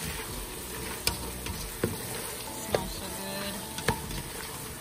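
Sliced zucchini and minced garlic sizzling in a stainless steel pot as they are stirred with a plastic spoon, which knocks against the side of the pot four times, about once a second.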